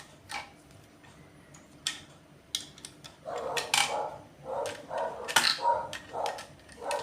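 Plastic and metal parts of Anderson power connectors clicking and knocking as they are handled, with scattered sharp clicks throughout and a quick run of short, dull bumps in the second half.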